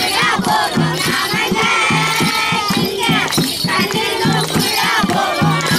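Music with a fast, steady drumbeat and a wavering melody line above it.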